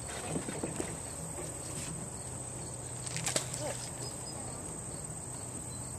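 Steady high-pitched chorus of insects, with a few faint knocks and one sharper knock about three seconds in.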